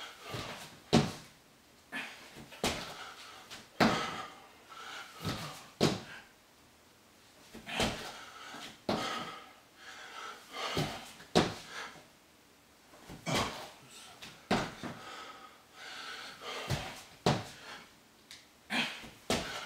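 Burpees on a wooden floor: repeated thumps and knocks as hands and sneakered feet land, kick back and jump, in clusters a few seconds apart, with hard breathing between them.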